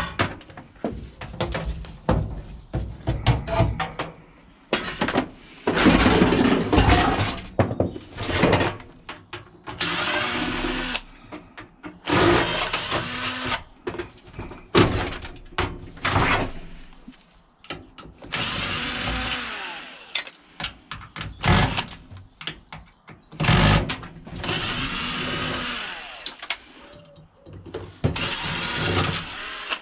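Irregular metallic clanks, rattles and scraping in bursts of a second or two as a microwave and tumble dryer are stripped for scrap metal.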